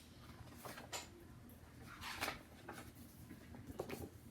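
Quiet rustles and a few light knocks from a picture book being handled, with the strongest rustle about two seconds in.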